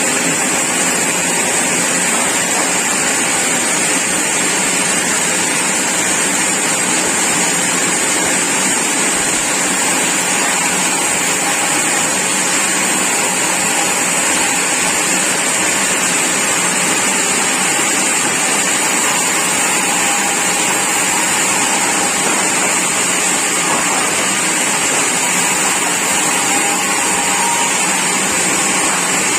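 Sawmill machinery running steadily: a loud, even, unbroken noise with a strong high hiss, as the saw mill works mahogany timber.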